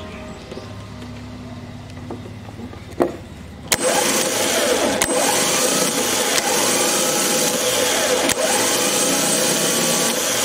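Car starter motor run on the bench. About a third of the way in it starts with a click and spins up sharply, then runs freely with a loud, steady whir and a high whine as the pinion gear turns.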